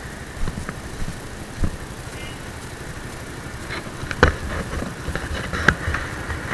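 Motorcycle engine idling with a low, steady rumble, with a few sharp knocks about four and five and a half seconds in.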